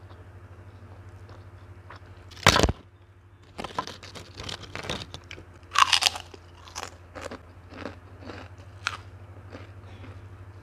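Close-up crunching of a crisp puffy cracker being bitten and chewed, with two loud crunches about two and a half and six seconds in and crackly chewing between and after. A low steady hum runs underneath.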